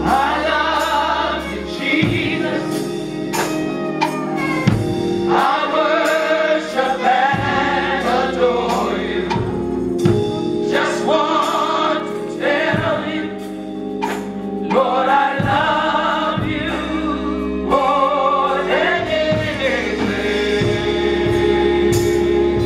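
Gospel choir singing in drawn-out phrases over a live band, with sustained bass notes and drum hits.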